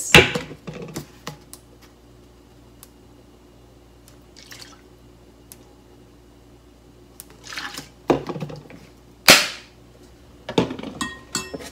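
Sharp plastic clicks and knocks from handling a soy sauce bottle with a flip-top cap, opened to pour and the bottle moved about, with a metal spoon clinking against the rice cooker's inner pot. The sounds come in a few separate snaps: a cluster at the start, a quiet stretch, then louder knocks from about eight seconds in, the loudest about nine seconds in.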